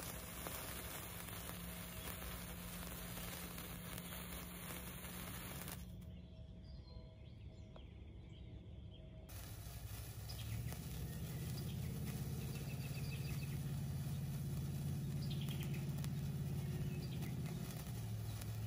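Wire sparklers burning with a fizzing crackle. Partway through, a low steady hum comes in, with a few bird chirps over it.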